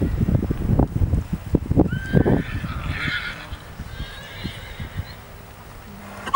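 A horse's hoofbeats thudding on grass turf in a steady rhythm, fading after about two and a half seconds, with a horse whinnying faintly about two seconds in.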